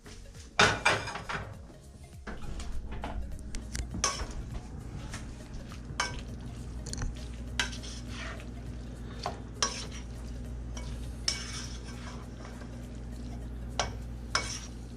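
A utensil stirring and scraping in a pot, mixing pasta, with irregular clinks and knocks against the cookware, the loudest clatter within the first two seconds. A steady low hum comes in about two seconds in.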